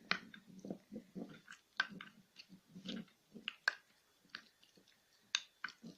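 A spoon stirring thick moisturizing cream and almond oil in a small container: irregular clicks of the spoon against the container's sides with soft wet squelching between them.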